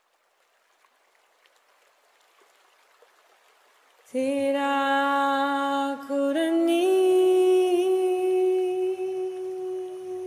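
A voice humming long held notes, starting suddenly about four seconds in after a faint hiss, and stepping up to a higher note a couple of seconds later.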